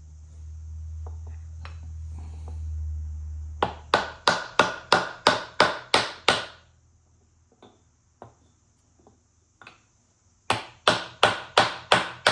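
Hammer tapping on a steel gear and drive shaft in a Bush Hog RZ60 rotary cutter gearbox, moving the gear along the shaft to expose the retainer-ring groove. The taps come in two runs of even strikes, about three a second, each with a short metallic ring: ten or so starting a few seconds in, then six more near the end. A low steady hum comes before the first run.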